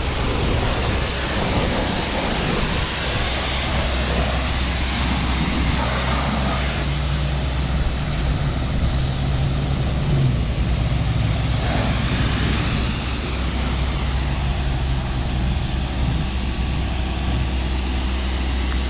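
Kärcher pressure washer running steadily, a constant motor hum under the hiss of the high-pressure water spray.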